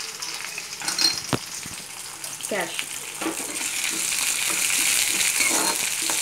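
A tempering of cashews, cumin, pepper and curry leaves sizzling in hot ghee and oil in a kadai. There are a couple of sharp clicks about a second in as the cashews go in, then a steel spoon scraping and stirring. The sizzle grows louder in the second half.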